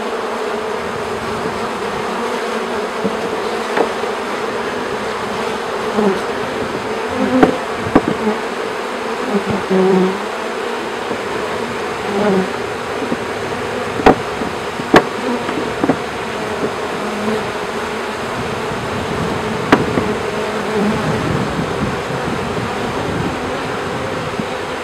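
Steady mass buzzing of thousands of honey bees just shaken from a package into an open top-bar hive, swelling louder now and then. A few sharp knocks come about halfway through as wooden top bars are laid over the bees.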